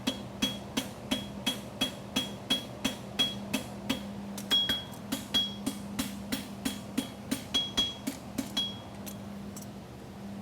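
Farrier's hammer striking a steel horseshoe on an anvil at a steady pace, about three blows a second, each with a high ringing note, while a quarter clip is drawn on the shoe. The hammering stops near the end. A steady low hum runs underneath.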